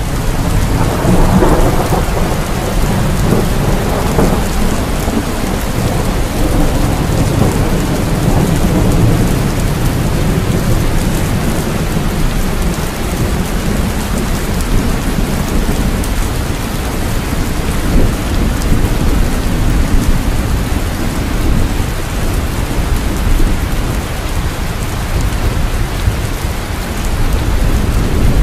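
Steady heavy rain on a surface with rolling thunder, a rumble swelling up about a second in and lingering.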